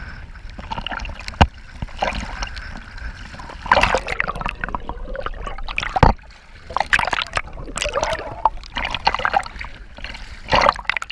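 Sea water splashing and sloshing close up in irregular bursts as a swimmer moves in the water, with two sharp knocks, one about a second and a half in and one about six seconds in.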